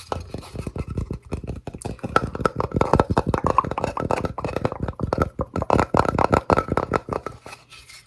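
Rapid, continuous tapping on a small trinket, many quick taps a second, with a faint ringing note under them.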